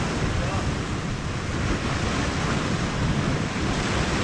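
Sea waves breaking and washing against the shore, a steady rushing, with wind buffeting the microphone.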